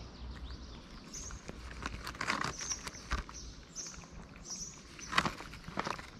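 A cat eating wet food and kibble from a plastic tub: irregular wet chewing, smacking and lapping clicks, with a louder click about five seconds in.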